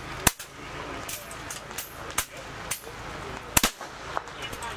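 PCP air rifles firing on a benchrest line: several sharp shots at irregular intervals, the loudest about a third of a second in and about three and a half seconds in.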